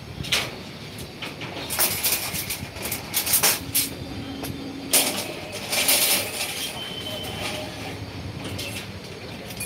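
Steel reinforcing bars clanking and rattling against each other and the steel table of a rebar bending machine as they are handled, with a string of irregular metallic clanks that are loudest between about two and six seconds in.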